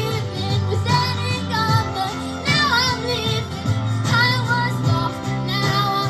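Young female voices singing a Christian worship song over instrumental accompaniment, in several phrases of wordless or unclear held notes with vibrato.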